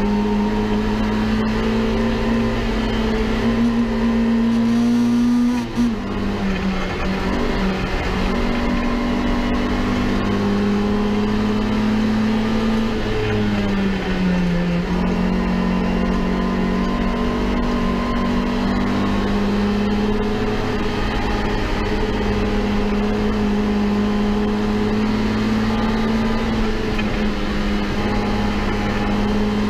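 Citroën AX Sport's four-cylinder engine heard from inside the cabin, running hard at high revs. Its pitch climbs, breaks off briefly about six seconds in, drops about halfway through and then holds steady.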